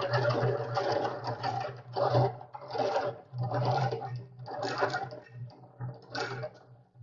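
Antique hand-cranked galvanized tin honey extractor spinning honey frames, its crank gearing whirring in a rhythmic pulse about once every turn and fading toward the end.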